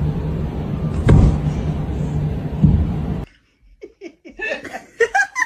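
A steady low rumble that cuts off suddenly a little over three seconds in, then a person laughing in short bursts.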